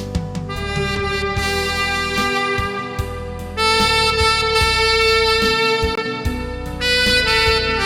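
Tenor saxophone playing a slow gospel-song melody in long held notes over a backing track, the notes growing louder about halfway in.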